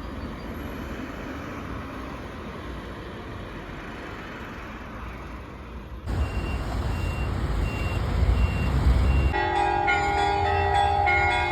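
City street ambience with traffic noise, cut abruptly about halfway to a louder, low vehicle rumble. Near the end a steady chord of several held tones comes in over it.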